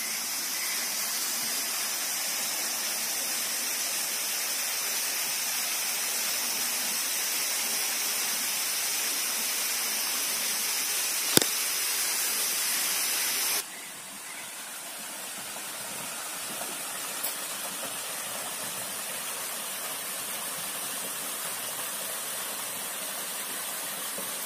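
Waterfall rushing: a steady hiss of falling water. A sharp click comes about 11 seconds in, and about 14 seconds in the water sound suddenly drops quieter and continues.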